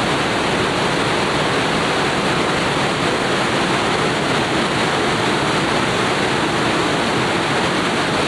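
Trümmelbach Falls, a waterfall plunging through a narrow rock gorge: a steady, loud rush of falling water with no let-up.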